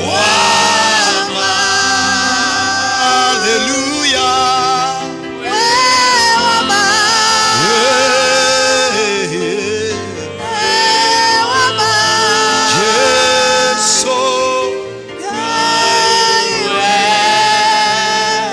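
Worship song sung over sustained instrumental backing, in long held phrases with short breaks about every five seconds.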